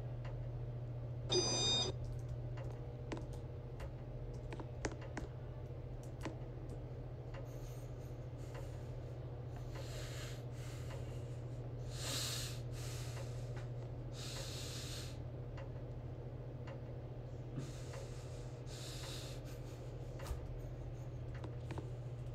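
Casablanca Victorian ceiling fan with an XLP motor running on its lowest speed, a steady low motor hum. A brief higher-pitched sound comes about a second and a half in, with a few faint airy rushes and small clicks later on.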